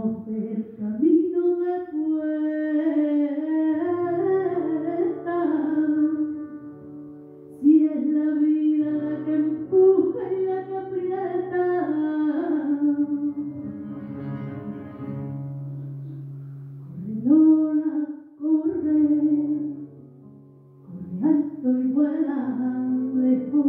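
A woman singing a slow song into a microphone in long, wavering held notes, with low sustained accompanying notes coming in under her about four seconds in. She breaks off briefly twice near the end.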